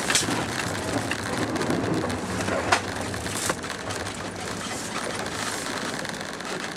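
Van tyres crunching and hissing through snow as the van slides round in a handbrake spin, with a few sharp knocks.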